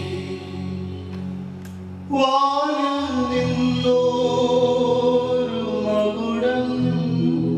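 Christian devotional singing over sustained instrumental chords. About two seconds in, the sound cuts abruptly to a louder passage, with a voice singing over steady low chords.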